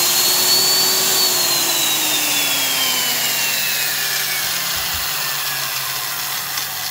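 Black & Decker 1321 6-amp half-inch spade handle drill running unloaded with a high whine, then coasting down after the trigger is let go about a second in, its whine falling slowly and steadily in pitch for several seconds. The long spin-down shows the bearings running freely.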